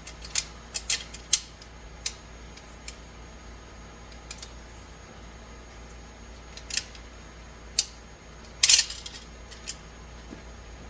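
Sharp, irregular metallic clicks and clinks as steel parts of an automatic transmission's clutch pack are handled and seated during reassembly, with a louder burst of clinking near the end.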